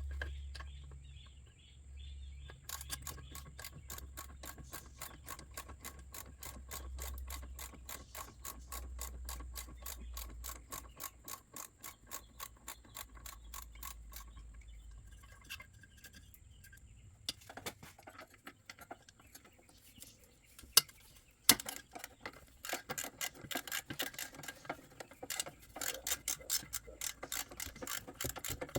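Hand socket ratchet clicking in quick, even runs while the bolts holding an oil tank are loosened. The clicking stops for a few seconds midway, and two sharp knocks come shortly after it resumes.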